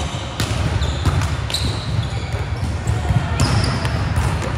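Basketball game indoors: a ball being bounced on the court amid the general noise of a gym, with short high squeaks a few times.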